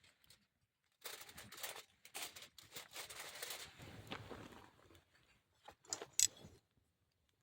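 Rustling and crinkling handling noises lasting a few seconds, followed by a few sharp clicks about six seconds in.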